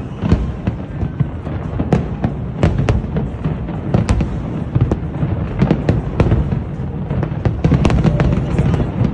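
Fireworks display: aerial shells bursting in quick succession, several sharp bangs a second over a continuous low rumble, with a thicker flurry of bangs near the end.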